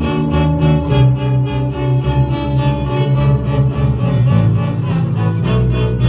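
Small string ensemble playing live: violins and cello play sustained bowed notes over a steady double-bass line.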